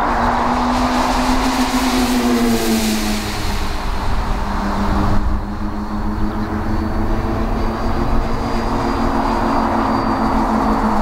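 Twin engines of a radio-controlled F7F Tigercat scale model droning steadily as it flies by, the pitch dropping about two to three seconds in as it passes, over a low rush of wind on the microphone.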